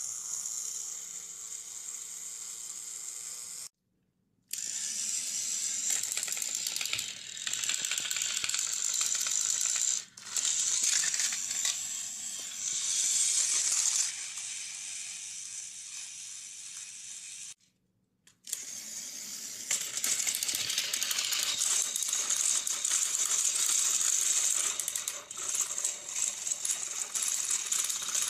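Battery-powered plastic Thomas & Friends toy engines running, their small motors whining and plastic gears clattering as they push against each other on plastic track. The sound cuts out completely twice, briefly, about four and eighteen seconds in.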